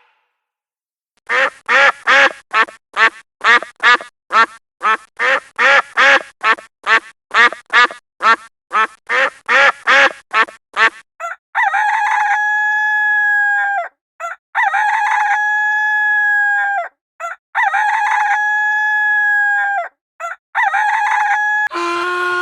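Chickens: a long run of quick clucks, about two and a half a second, then a rooster crowing four times in long held calls.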